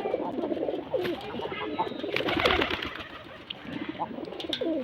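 Several pigeons cooing, their warbling coos overlapping. A short burst of noise about halfway through is the loudest moment.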